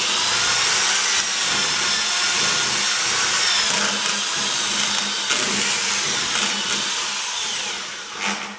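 Corded electric drill with a mixing paddle churning tile mortar in a plastic bucket, its motor running with a steady whine that shifts a little in pitch. It winds down and stops near the end.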